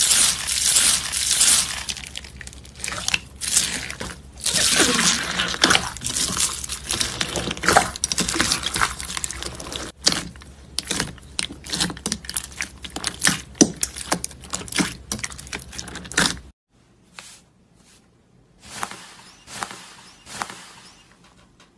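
Slime being squeezed and poked by hand: a dense run of crackles, pops and squishes that breaks off about three-quarters of the way through, then comes back more faintly.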